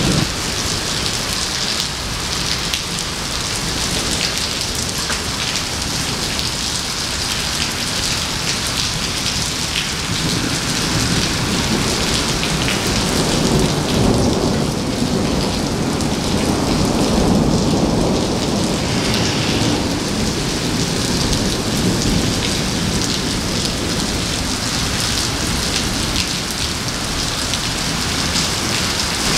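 Heavy rain pouring onto pavement, a dense steady hiss. A low rolling rumble of thunder swells up about halfway through and fades a few seconds later.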